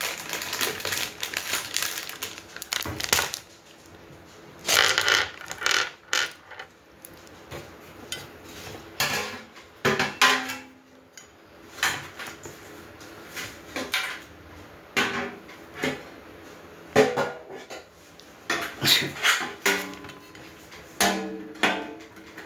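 Metal grill parts clanking and rattling as they are handled and fitted together during assembly, in irregular knocks, some with a brief metallic ring.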